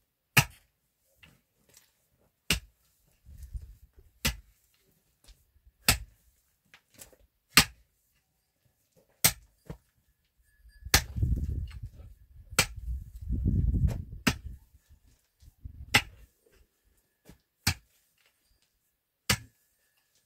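Pickaxe striking hard, stony earth in a steady rhythm, about one sharp blow every second and a half to two seconds, twelve in all. A low rumble between some of the blows, loudest in the middle stretch.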